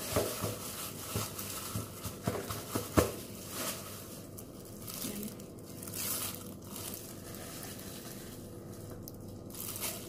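Clear plastic disposable gloves crinkling as hands handle a raw whole chicken, with a few sharp knocks in the first three seconds.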